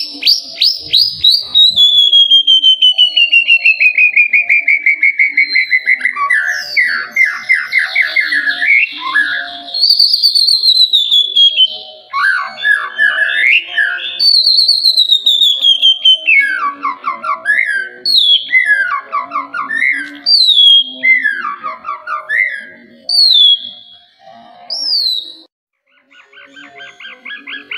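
White-rumped shama singing: a long run of fast repeated notes sliding down in pitch, then a string of short phrases of clear down-slurred whistles and quick chattering notes, with a brief pause near the end.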